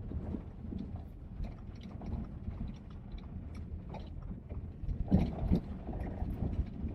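Car driving over a corrugated dirt road: a steady low rumble with a constant patter of small rattles and knocks, and a few louder bumps about five seconds in.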